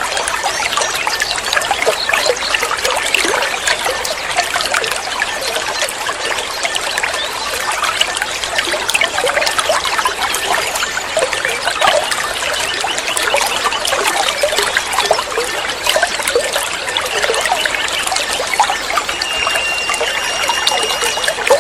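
Water trickling and babbling steadily, like a small stream or fountain. Near the end a steady, whistle-like tone sounds for about two seconds.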